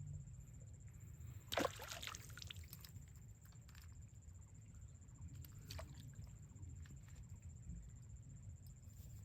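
Water sloshing and splashing: one sharp splash about one and a half seconds in, a smaller one near six seconds, over a low steady background hum.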